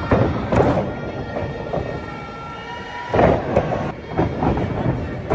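Arena crowd noise at a lucha libre show, with heavy thuds of wrestlers' bodies landing on the ring mat at the start and again about half a second in. A louder surge of crowd noise or impact comes a little after three seconds.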